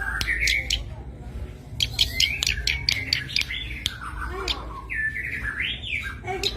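Cici padi (zitting cisticola) calling: sharp, dry clicking notes at irregular spacing, mixed with harsh, scratchy chattering phrases.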